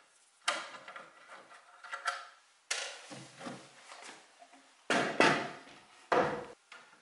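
Wooden knocks and clunks as a cabinet door is taken off its hinges and handled: five sharp knocks, the loudest pair about five seconds in.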